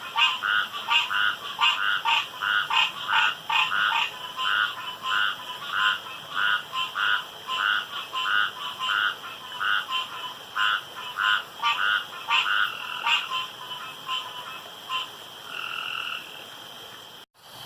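Frogs croaking at a pond at night in a fast, steady run of short calls, about three a second. Near the end this gives way to a few longer, drawn-out notes.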